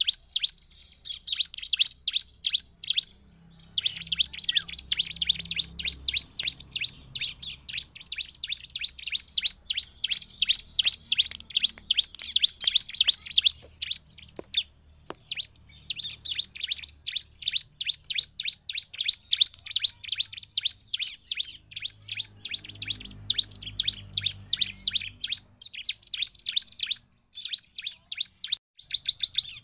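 Bar-winged prinia (ciblek) singing continuously: long runs of rapid, high-pitched chirps, broken by short pauses about three seconds in, around the middle, and near the end.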